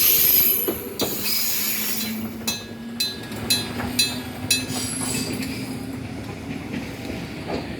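Train running through the station on its rails. It is loud at first, then settles into sharp clacks about two a second over a steady hum, fading toward the end.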